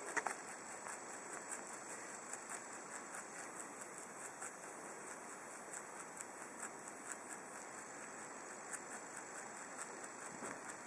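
Lionhead dwarf rabbit nibbling carrot greens: quick, crisp chewing ticks, about three or four a second, with a couple of louder crunches right at the start.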